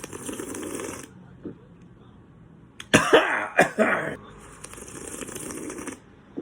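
Close-up eating sounds: two stretches of hissy slurping, with a burst of sharp clicks and clatter about three seconds in.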